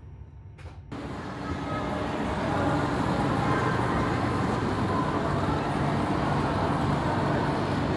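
A low rumble fades out, then about a second in a steady railway-platform din comes in: the hum of a high-speed train standing at the platform and the bustle of a large station hall.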